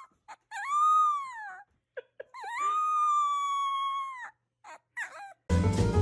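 A dog whining and howling in high-pitched, drawn-out cries: a rising-then-falling cry, a couple of short yelps, then a long held cry of about two seconds that sags at the end. Music starts abruptly near the end.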